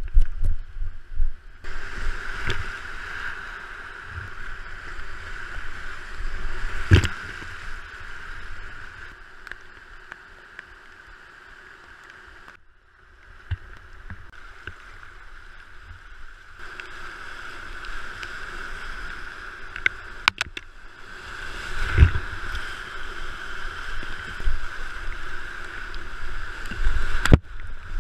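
Rushing river water around a whitewater kayak in a rapid, with a few sharp knocks. The sound changes abruptly a few times.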